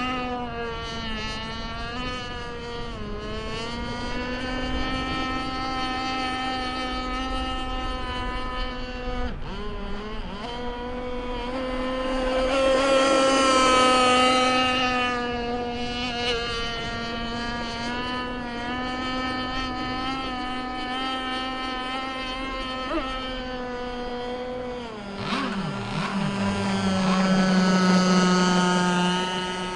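51-inch Micro Burst RC race boat's engine running on the water, a buzzing note that wavers in pitch. It grows louder around the middle and again near the end, and shifts to a lower, steadier note a little before the end.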